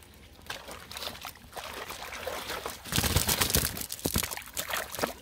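Water trickling and splashing as a cast net heavy with fish is hauled out of shallow pond water onto the bank, the wet mesh rustling. A louder stretch of splashing and slapping comes about three seconds in.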